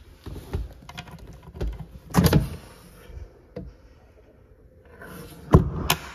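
Fibreglass storage lid and seat cushions of a wakeboard boat being handled. A short rubbing, sliding sound comes about two seconds in, and two sharp knocks come near the end.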